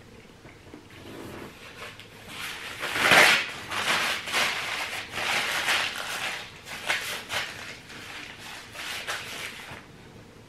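A paper towel rubbed between the hands and crumpled, a rustling crackle in a string of bursts, loudest about three seconds in.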